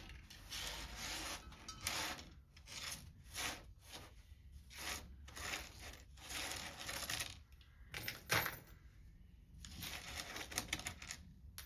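Irregular clinks and rustles of small carburetor screws and washers being handled and sorted, with one sharper click about eight seconds in.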